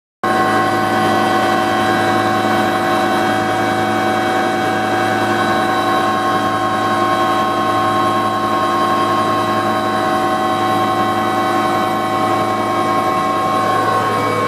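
A Bell 205A-1 (Huey) helicopter, its single Lycoming T53 turboshaft and rotor running steadily, heard from inside the cabin with the door open. The loud turbine whine is made of several steady tones over a deep drone. Near the end the tones shift a little as the helicopter starts to move for takeoff.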